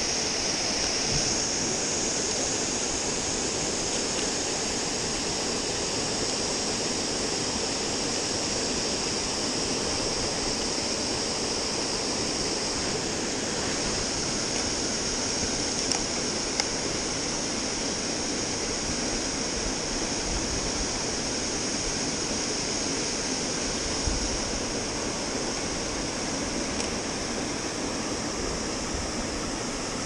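Steady rushing of a small waterfall spilling into a shallow rocky stream, with a faint click about halfway through and another later.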